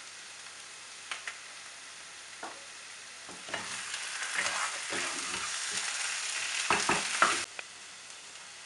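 Mutton curry frying in a pan with a low sizzle, and a spoon stirring and scraping against the pan, louder and busier from about three seconds in, then cutting off abruptly near the end.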